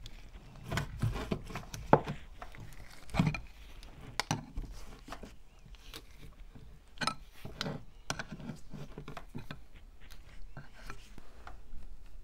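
A flat steel tool prying and scraping at the rusted crank handle and its pin on an antique hand-cranked meat grinder, making irregular sharp metal clicks and knocks, the loudest about two seconds in.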